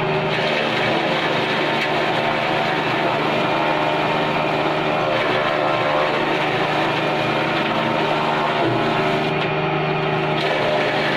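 JF-30 Evo chaff cutter running steadily, its blades chopping green fodder stalks as they are fed in, with a constant mechanical hum.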